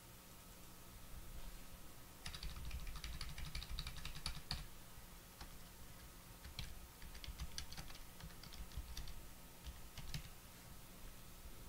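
Typing on a computer keyboard: a quick run of keystrokes about two seconds in, then scattered single keystrokes and clicks.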